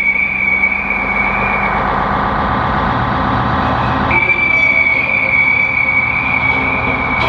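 Experimental electronic and acoustic noise music: a sustained high whistling tone over a dense, churning drone. The high tone fades out about two seconds in and cuts back in abruptly about four seconds in.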